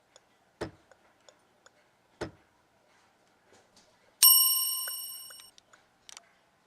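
Two short knocks, about half a second and two seconds in. About four seconds in comes a single bright, bell-like ding that rings and fades away over about a second and a half. A few faint clicks follow.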